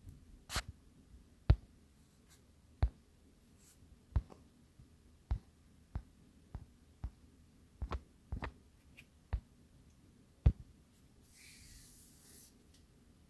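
About a dozen sharp, separate clicks at irregular intervals, with a short soft hiss near the end.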